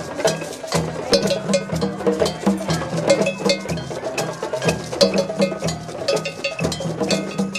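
Drum circle: many djembes and other hand drums struck by hand together in a steady, dense rhythm, with deep bass tones under sharp slaps.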